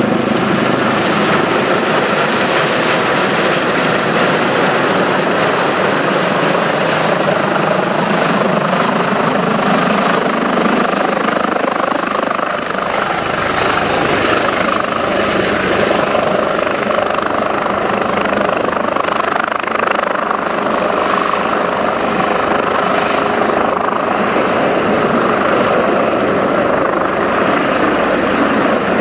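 Airbus EC145T2 (BK117D-2) helicopter in a low hover coming in to land, its twin turboshaft engines, main rotor and Fenestron shrouded tail rotor making a loud, steady rotor and turbine noise with a thin high whine over it.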